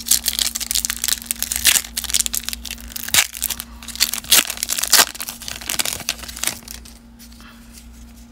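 Baseball card pack wrapper being torn open and crumpled in the hands: a dense run of crackling and crinkling for about seven seconds, dying down near the end.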